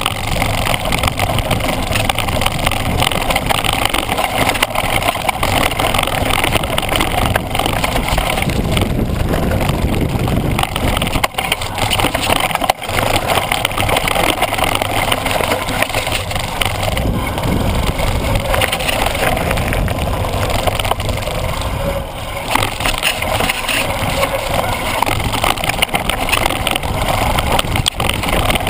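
Mountain bike ridden over a rough, stony, wet dirt trail: a steady loud rumble of tyres on gravel and dirt with constant rattling from the bike, and wind on the microphone.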